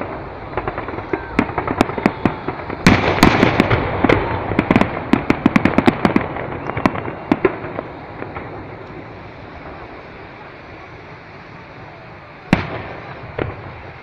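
Aerial fireworks: rapid crackling and popping of many small bursts through the first seven seconds or so, densest in the middle of that stretch, then dying away. Near the end comes one loud bang, followed by a smaller one.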